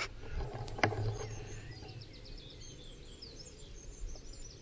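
Small birds chirping and singing, with a single sharp click about a second in.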